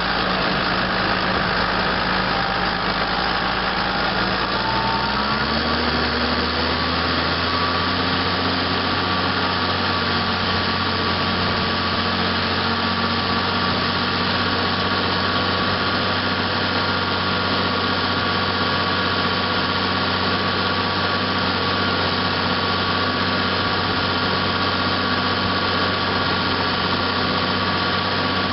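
Massey Ferguson 6475 Dyna6 tractor's diesel engine running steadily while ploughing, with a change in the engine note about five seconds in.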